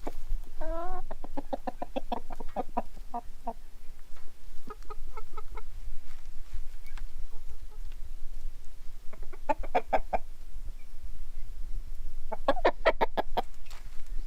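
Chickens clucking in several quick runs of short notes, over a steady low rumble.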